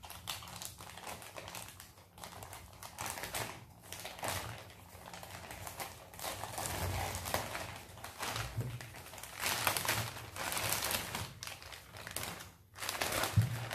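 Parcel packaging rustling and crinkling in irregular bursts as the parcel is opened and its contents handled, with small clicks among the rustles and a short break a little before the end.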